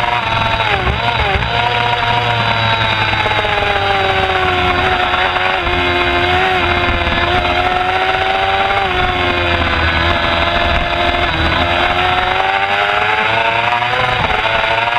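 Middleweight superbike engine at race speed, heard from an onboard camera with wind rumble on the microphone. Its pitch wavers about a second in, sags slowly through the middle, climbs again toward the end and drops briefly with a gear change near the end.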